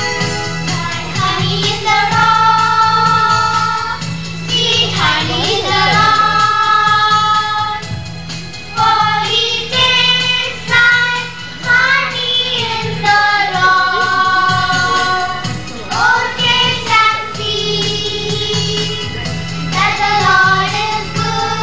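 A song sung by high voices, children's or women's, over an electronic keyboard accompaniment.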